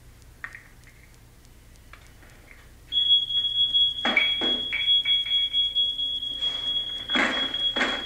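Smoke alarm going off in a film soundtrack heard from a TV speaker: a steady high-pitched tone starts about three seconds in and holds. From about four seconds, loud irregular noises break in over it again and again.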